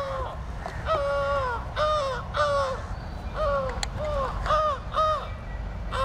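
Crows cawing: a run of about seven short caws, each arching up and down in pitch, over a steady low rumble.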